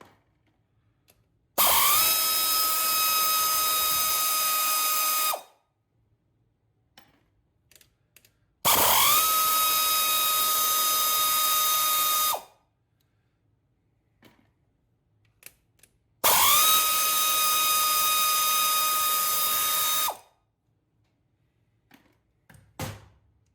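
A power driver spinning 12 mm nuts off the studs of a GY6 engine's cylinder head. It runs three times, about four seconds each: each run spins up quickly and then holds a steady whine. Light clicks of handling fall in the gaps between runs.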